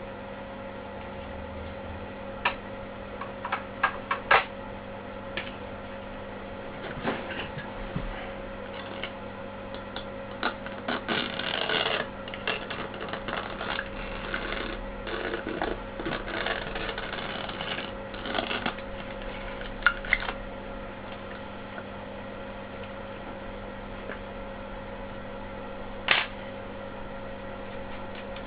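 Steady hum under scattered clicks and taps of hand work. A denser stretch of scraping and rustling comes about ten to twenty seconds in.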